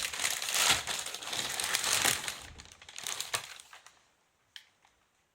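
Crinkling and rustling of a package's wrapping being handled, dense for about three and a half seconds and then dying away, with one small click near the end.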